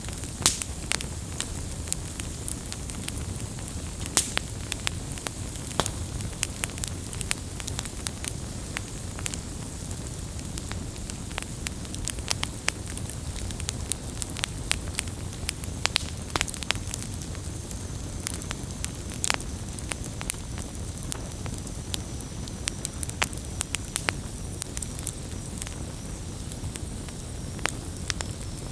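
Campfire burning, wood crackling and popping with frequent sharp snaps over a steady low rumble of the flames.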